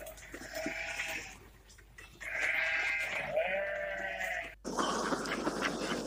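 Bleating: a short bleat about half a second in, then two long bleats back to back from about two seconds in, their pitch bending. About four and a half seconds in, the bleating cuts off abruptly and a louder, rougher noise takes over.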